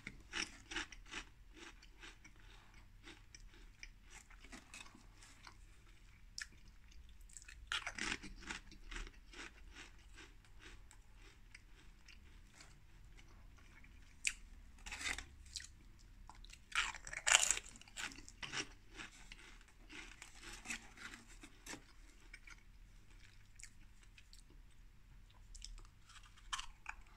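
A person chewing Pringles potato crisps: steady crunching and chewing, with louder crunches every so often, about 8, 15 and 17 seconds in.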